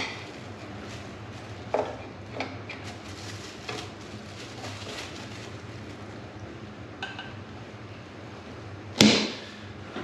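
Steel tire spoons clicking and knocking against a dirt bike's metal rim as the tire bead is levered down onto it, with a few scattered clicks and one loud sharp clank about nine seconds in.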